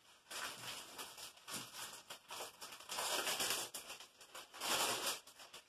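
Clear plastic zip-top bag crinkling and rustling as it is handled, in irregular bursts, loudest about three seconds in and again near five seconds.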